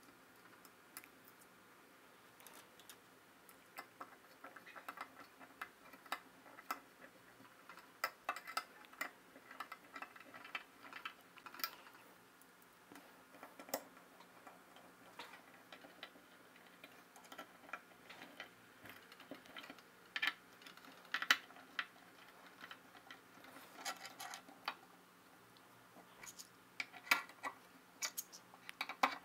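Irregular light clicks and ticks of small metal hand tools and screws as bolts are driven by hand through a 3D-printed plastic motor mount into a stepper motor, with louder clicks in the last third.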